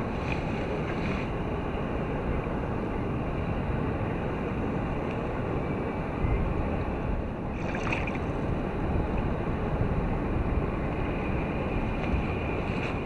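Steady wind rumbling on the microphone over choppy open water lapping against a kayak hull.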